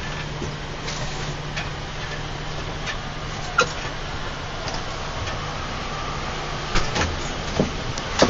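Interior running noise of a moving long-distance bus: a steady low drone with road noise. A few sharp clicks or knocks break through, one about halfway and several close together near the end.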